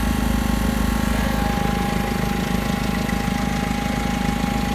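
Backhoe engine running steadily at low revs while it drives a skid-steer snowblower attachment, with a steady whine held above the engine note.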